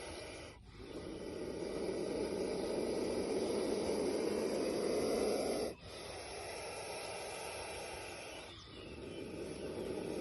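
Snake hissing in long drawn breaths of several seconds each, with short breaks between them: the first swells louder, the second is softer, and a third starts building near the end.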